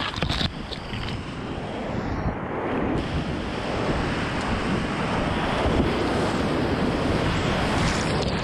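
Steady loud roar of a river in spate pouring through whitewater rapids, heard from a kayak in the middle of them. A few sharp knocks near the start; splashing water buffets the camera microphone.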